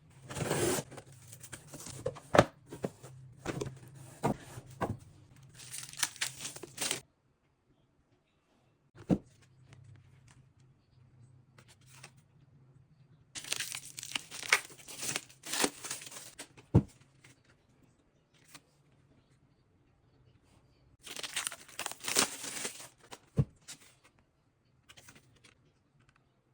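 Packaging being torn open and crinkled by hand in three long bursts of rustling, with a few sharp knocks between them.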